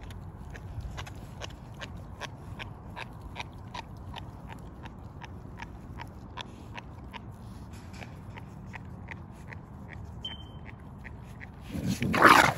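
American bully puppy chewing raw whole chicken, bones cracking and crunching about three times a second. Near the end a second dog closes in over the food and loud dog growling breaks out.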